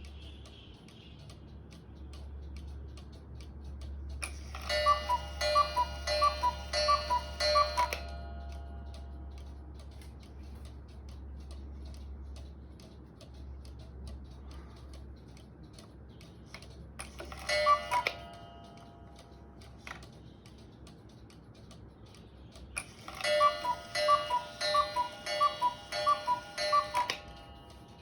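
Refurbished carved cuckoo clock ticking steadily. Three times its two-note cuckoo call sounds from the bellows pipes: a run of calls about four seconds in, a single call about halfway through, and another run near the end.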